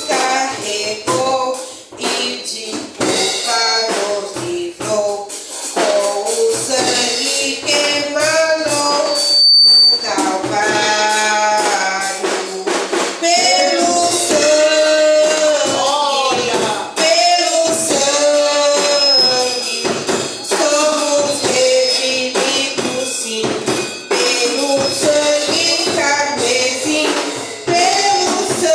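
Worship song performed live: voices singing a melody over instrumental accompaniment with a steady percussive beat.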